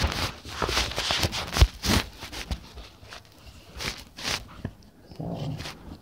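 Handling noise on a phone's microphone: fabric rubbing and scattered bumps and knocks as the phone is shifted around against clothing. The noise is busiest in the first two seconds, then quieter.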